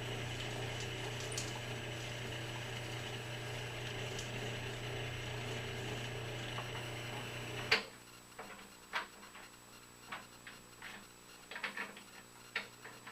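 Electric drill motor running steadily while the bit is worked around to enlarge a hole, switched off with a click about eight seconds in. After that come light scattered clicks and knocks of tools and the workpiece being handled.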